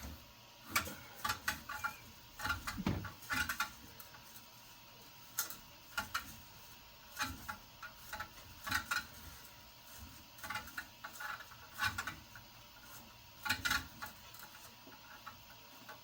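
Irregular light clicks and short plastic rattles from handling a filament spool and feeding the freshly cut filament into a 3D printer.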